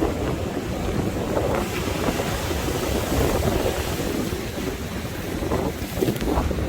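Sea waves surging against the shore with strong wind buffeting the microphone; the wash of the water swells about two to three seconds in.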